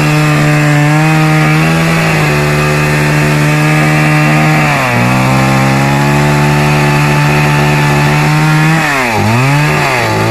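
STIHL chainsaw running at high revs, cutting wood. Its pitch sags briefly twice, about 2 and 5 seconds in, as the chain takes load. Near the end the throttle is eased off and blipped, so the engine speed drops and rises again.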